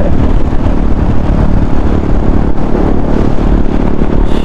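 KTM Duke 390's single-cylinder engine running as the bike is ridden, under a steady loud low rush of wind on the microphone.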